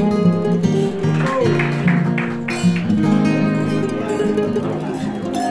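Music led by a strummed and plucked acoustic guitar, in a flamenco style.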